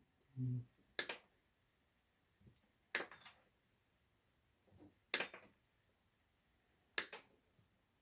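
Four sharp clicks, about two seconds apart, as small dishwasher parts are taken apart by hand.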